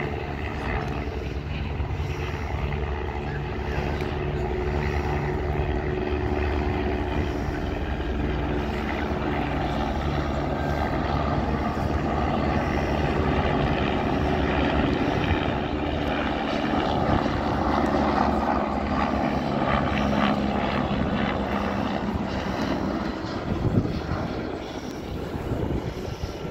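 A steady engine drone from an aircraft, over a rushing noise; the drone fades near the end, around a single sharp knock.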